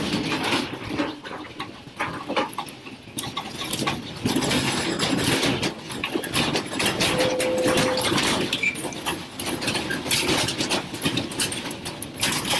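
A classroom shaking in a strong earthquake: a continuous rumble with dense rattling and knocking of the building and its contents, getting louder about four seconds in.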